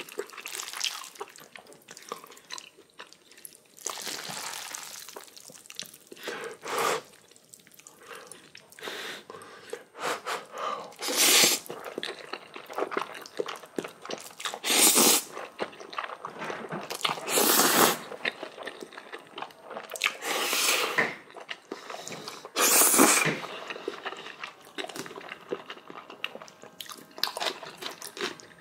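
A person eating Chapagetti black-bean instant noodles with kimchi: several loud slurps of noodles a few seconds apart, with wet chewing and crunching in between.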